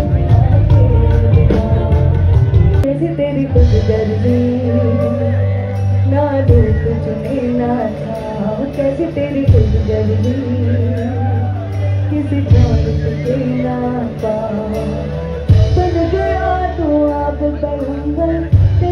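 Live concert music: a singer with a band, loud through stage speakers, over a heavy held bass line.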